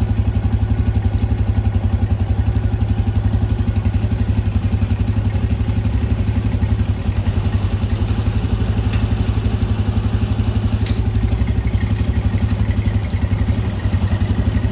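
Farmall 460 tractor engine running steadily at working speed, its firing pulses even and strong, with a light mechanical clatter from the harvesting machinery.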